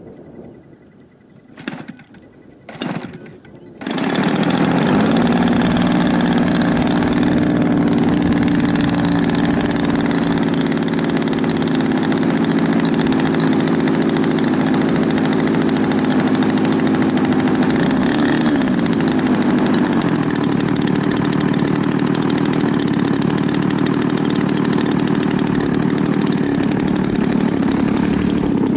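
30cc two-stroke petrol engine of a Seagull Edge 540 radio-control model plane being started: two short coughs, then about four seconds in it catches and runs steadily, with a brief wobble in pitch about two-thirds through.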